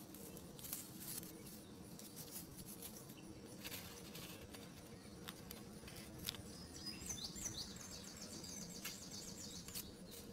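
Faint handling of cardboard 3D-puzzle pieces: scattered light clicks and rustles as the parts of a paper model engine are slotted together, over a steady low hum. A couple of short high squeaky chirps come about seven seconds in.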